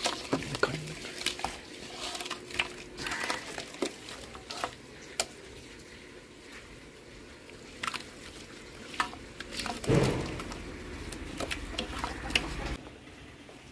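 Wet squelching and slapping as a hand kneads thick masala paste in a large aluminium pot, with irregular short clicks of fingers and paste against the metal. A louder low rumble comes in about ten seconds in and lasts a couple of seconds.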